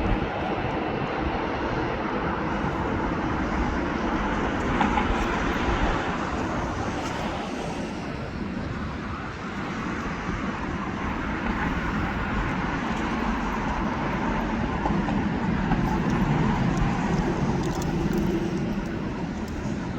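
Steady jet aircraft engine noise, easing a little midway and swelling again near the end.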